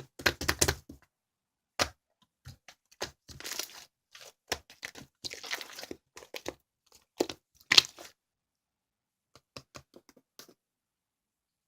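Irregular crinkling and crackling with sharp snaps, coming in separate bursts, the loudest about eight seconds in, then thinning to a few faint clicks.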